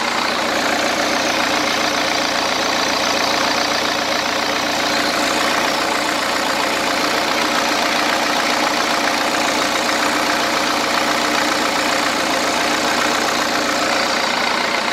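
Cummins 4BT four-cylinder turbo diesel idling steadily, fully warmed up after about 25 minutes of running.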